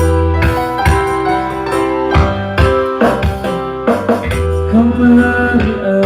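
A band playing the slow intro of a pop ballad: keyboard piano chords over a steady bass. A wavering, sustained melody line joins about two-thirds of the way through.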